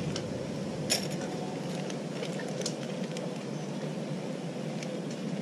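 Small clicks and clinks of metal fishing tackle being handled while a knot is tied, the loudest about a second in, over a steady background hiss.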